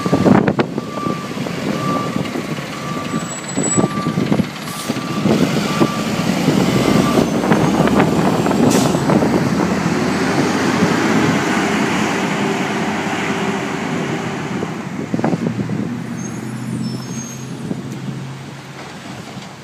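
Automated side-loader garbage truck: a beeping alarm about once a second with a few clanks for the first six seconds, then the diesel engine rising in pitch as the truck pulls away, fading near the end.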